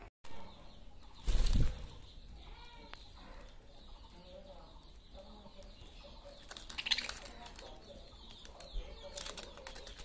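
Budgerigars at a seed feeder: a short flurry of wing flaps about a second and a half in, the loudest sound, then soft budgie chatter, with a sharper sound near seven seconds and a few light clicks near the end.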